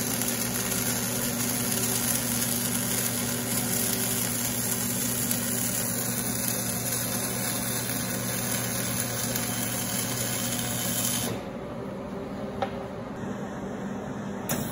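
Wire-feed (MIG) welding arc crackling steadily as a bead is run, for about eleven seconds, then the arc stops suddenly. A low steady hum continues underneath and after.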